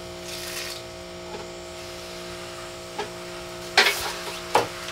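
Mesh screen door clacking shut twice near the end as someone walks back through it, over a steady hum; a brief splashing hiss just after the start as wastewater is poured out of the cooker's basket.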